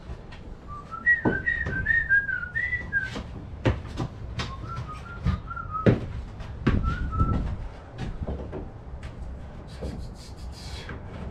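A person whistling a short tune in three phrases, the first the longest, over scattered knocks and clicks from taking apart a plastic greenhouse shed.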